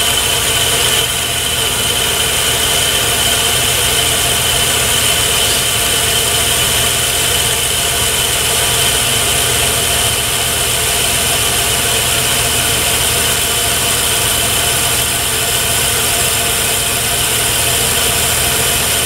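Metal lathe running as the tool takes a 20-thousandths cut on a steel bar. The motor and gearing give a steady, even drone with a steady high whine on top.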